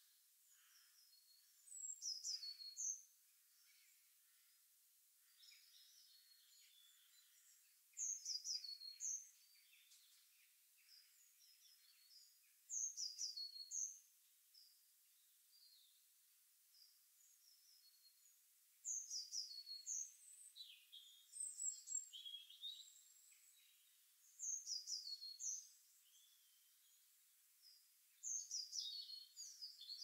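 A songbird singing a short, high phrase of quick falling notes, about a second long and repeated every five or six seconds, with fainter calls of other birds in between.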